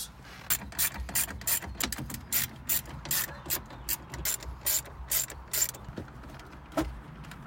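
Hand ratchet clicking at a steady two to three clicks a second as it backs out the bolts holding the stock radio in the dash, then stopping; a single knock follows near the end.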